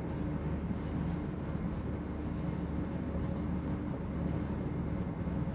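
Marker pen squeaking and scratching on a whiteboard as a ring structure is drawn, in short scattered strokes. A steady low hum runs underneath.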